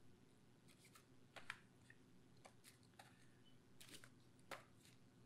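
Faint, scattered taps and light knocks of small cardboard product boxes being handled and set down on a tabletop, over a low steady hum.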